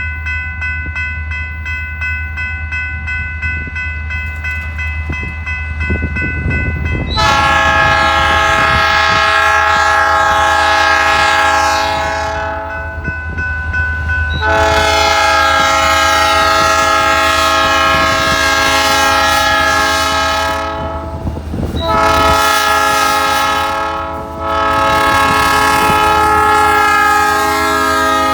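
A diesel freight locomotive's air horn sounding the grade-crossing warning, two long blasts, a short one, then a long one, starting about seven seconds in. Before the horn, the crossing's electric warning bell rings steadily.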